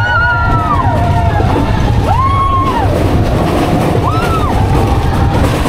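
Mine-train roller coaster rumbling along its track, with riders letting out four drawn-out whoops that rise and fall in pitch.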